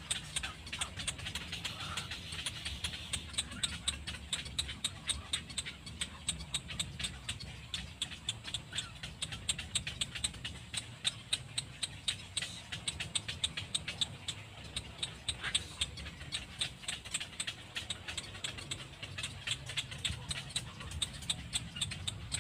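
Animal calls: a rapid run of short, sharp clicks, several a second, over a low steady rumble.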